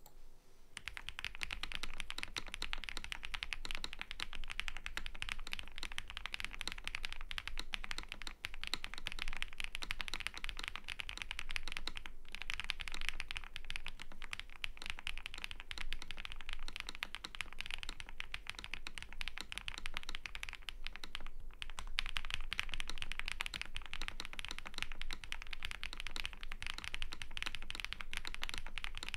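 Continuous typing on a KBDFans Tiger80 Lite mechanical keyboard with lubed HMX Hyacynth V2 switches, PBT dye-sub keycaps, a polycarbonate plate, tape mod and PE foam, with dense keystrokes and brief pauses about twelve and twenty-one seconds in.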